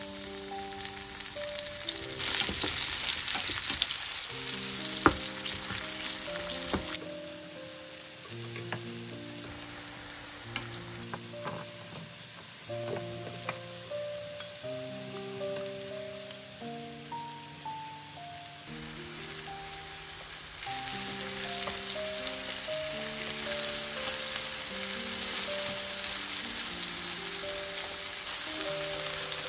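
Sliced zucchini and king oyster mushrooms sizzling as they fry in oil in a nonstick pan. The sizzle is louder near the start, quieter in the middle with a few sharp clicks, then louder again for the second half.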